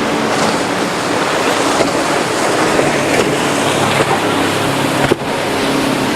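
Mercury outboard engines on a speedboat running hard through rough water, over a steady rush of wind and waves; the engine note shifts up and down. The sound drops out sharply for an instant about five seconds in.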